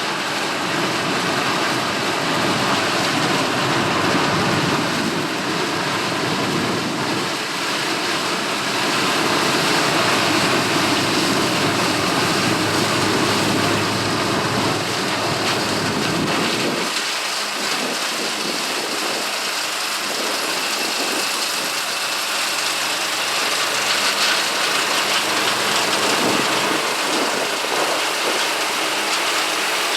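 Gleaner L3 combine's turbocharged six-cylinder Allis-Chalmers diesel running while harvesting corn, a dense steady noise of engine and threshing. The deep rumble drops away suddenly about 17 seconds in.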